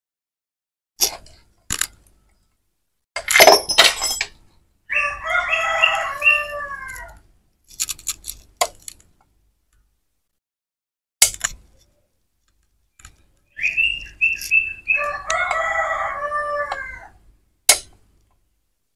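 A rooster crows twice, about five and fifteen seconds in, each crow about two seconds long. Between the crows come sharp metallic clicks and a loud clatter near four seconds in, from hand tools and parts on a motorcycle engine case.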